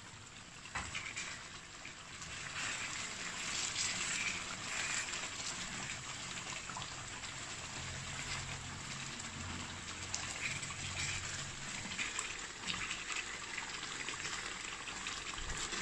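Thick lamb and potato curry simmering in an open pot, bubbling and popping, with a wooden spoon stirring through it. The sound grows louder over the first few seconds, then holds steady.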